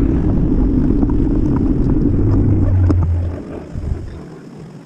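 Low, loud rumble of wind and road noise on the microphone of a camera mounted on a moving bicycle, with a steadier deep hum joining about two seconds in; the rumble fades out over the fourth second.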